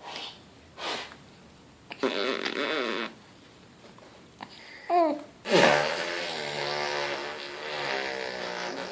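A toddler blowing raspberries, buzzing her lips: a short buzzy one about two seconds in, a brief rising-and-falling vocal squeak around five seconds, then a long buzzing raspberry of about three seconds.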